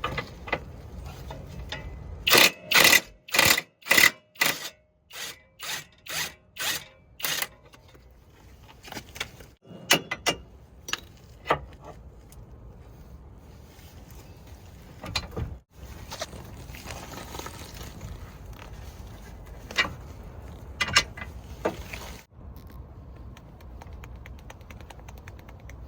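Hand-tool work on metal during a Subaru Outback lower ball joint replacement: a quick run of about ten loud, ringing metal impacts, then a few scattered clanks and clicks.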